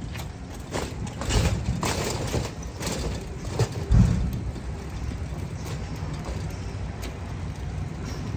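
Pedicab tricycle and its towed trailer cart rattling and clunking over cracked concrete as it is pedalled off, with the loudest knock about four seconds in, over a steady low rumble.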